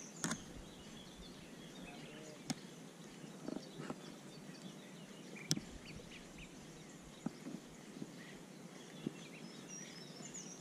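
Faint outdoor background noise with small birds chirping now and then and a few sharp clicks.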